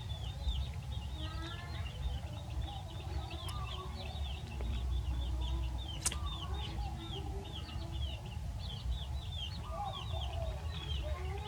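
Chickens clucking, with many short high chirps repeating rapidly throughout, over a steady low rumble.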